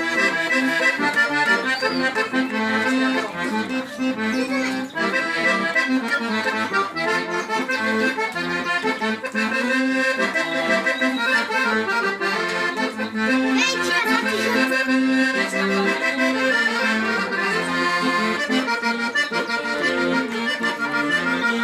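Accordion (sanfona) playing traditional dance music: a melody over a steady pulsing bass-and-chord accompaniment.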